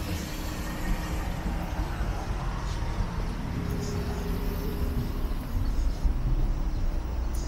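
City road traffic: vehicle engines running with a steady low rumble and a few held hums.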